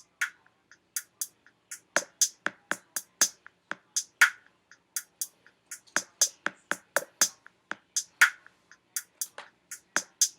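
A rapid, slightly irregular run of sharp clicks or taps, about three to four a second, some louder than others.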